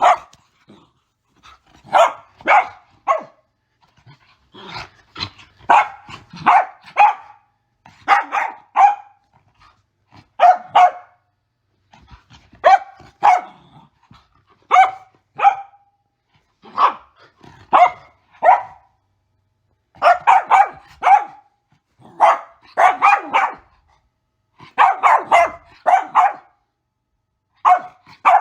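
Mini goldendoodle barking in short clusters of two to four sharp barks every couple of seconds, with brief pauses between.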